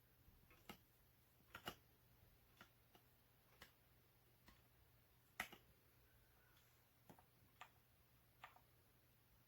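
Near silence with faint, scattered clicks and ticks, about ten of them at irregular intervals, the strongest about five and a half seconds in.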